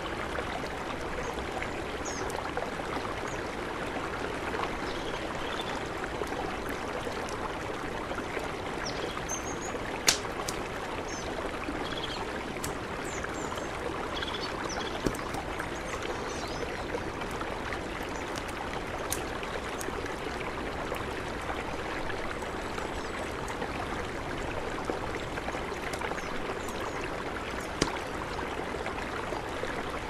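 Steady rush of a mountain river, with a few sharp pops from a crackling campfire, the loudest about a third of the way in and another near the end. Faint high bird chirps come and go through the first half.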